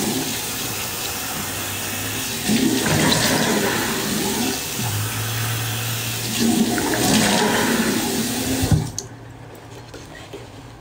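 A tap running into a sink while a face is washed, with two louder spells of splashing. The water is shut off abruptly about nine seconds in.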